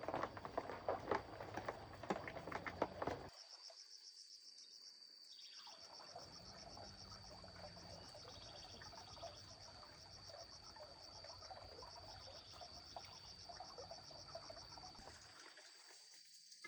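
Dense rustling with sharp clicks for about three seconds, which stops abruptly. An insect then trills steadily, a high, rapidly pulsing call over faint ambience.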